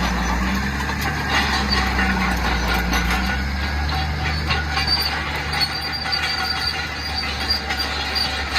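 Caterpillar D6H crawler dozer running, its diesel engine steady underneath a high metallic squeal and repeated clanking from its steel tracks.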